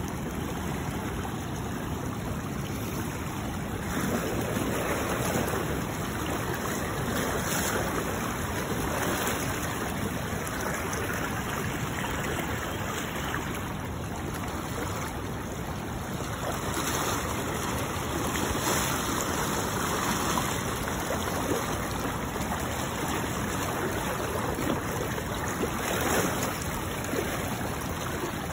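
Fast-flowing river water rushing over shallow rapids, a steady noise of current that swells a little at times.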